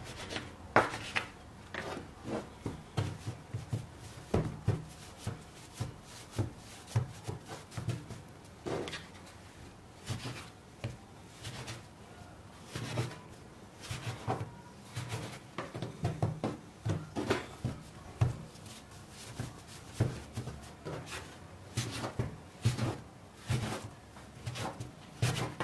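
A plastic dough scraper cutting through soft yeast dough and knocking on a wooden tabletop, with soft thuds as cut pieces of dough are set down. Irregular taps and knocks, several a second at times.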